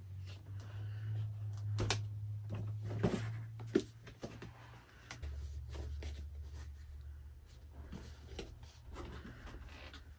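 Small cardboard gift box being handled and opened: scattered light knocks, taps and rustles of the box and its lid, over a low steady hum.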